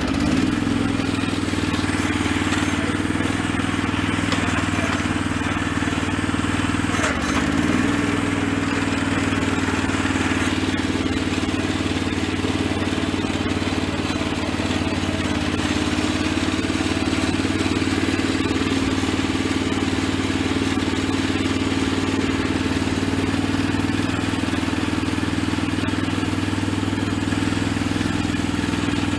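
Predator 420 single-cylinder engine running steadily in a Roper 18T hydrostatic garden tractor as it drives across grass, the pitch dipping briefly about seven seconds in.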